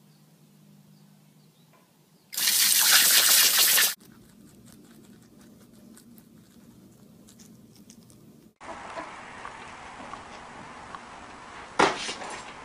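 Garden hose spray nozzle turned on for about a second and a half, a loud hiss of spraying water that stops abruptly. Faint small clicks follow, and a sharp knock comes near the end.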